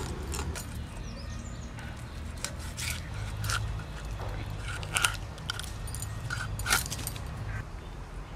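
Fresh rohu fish being scaled and cut through on a boti, pushed against the fixed upright blade: short, sharp scraping and cutting strokes at irregular intervals, the loudest about five seconds in and again near seven, over a low steady rumble.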